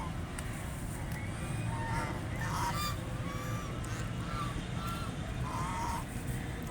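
Ducks quacking: a run of short, nasal, pitched calls, several overlapping, over a steady low background rumble.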